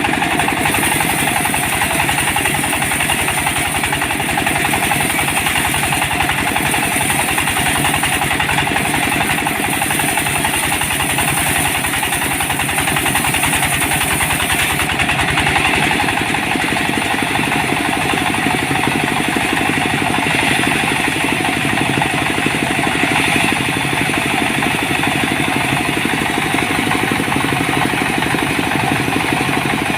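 Small engine running steadily at an even speed, the kind that drives a homemade log sawmill.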